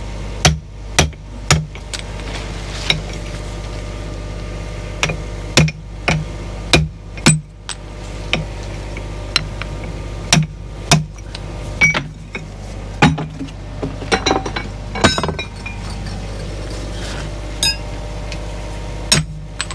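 Hammer blows on a steel pin punch, driving the retaining pins out of the bucket teeth on a 20-ton Caterpillar excavator: ringing metal-on-metal clinks, a quick run of four near the start, then single strikes every second or two. A steady low hum runs underneath.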